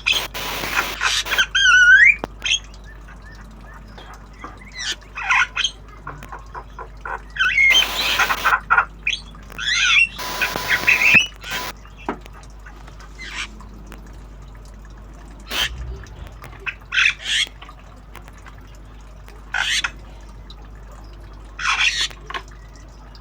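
Javan myna giving harsh squawks, chatter and short rising whistles in scattered bursts, coming thick and fast for the first dozen seconds, then single calls with pauses of a few seconds between them.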